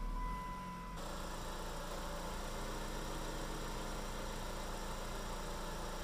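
Plymouth's 2.4L four-cylinder engine idling steadily just after starting on the first try, freshly reassembled after a head gasket and timing belt replacement. For the first second it is heard from inside the cabin along with a steady high tone; after that it is heard from the open engine bay.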